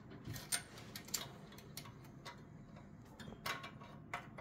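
Irregular light clicks and taps of a copper tube and its brass fittings being handled and bent by hand, the sharpest about half a second in.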